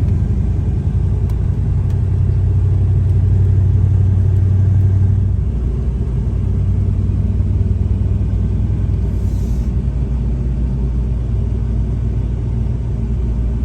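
Chevrolet Impala SS driving, a steady low engine rumble with road noise; it is a little louder for the first five seconds or so, then eases off.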